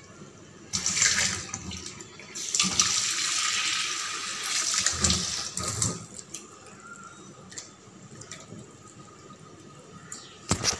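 Tap water running into a stainless-steel bowl, briefly about a second in and then for about three seconds, with hands splashing and swishing in the water while rinsing goat brain. Quieter splashing follows, with a short sharp knock near the end.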